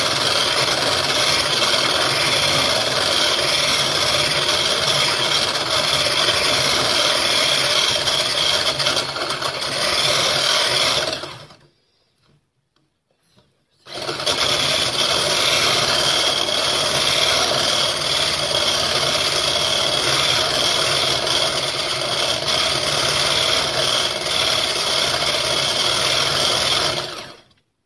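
Electric hand blender whipping egg white and sugar into meringue in a tall beaker: a steady motor whir. It stops about eleven seconds in, stays off for about two seconds, then runs again until just before the end.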